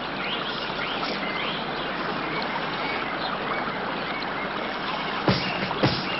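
Steady rush of flowing water with birds chirping over it. Near the end a run of sharp knocks begins.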